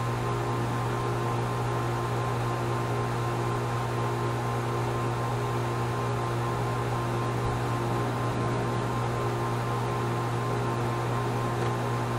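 Steady machine hum: a low, unchanging drone with a faint hiss over it.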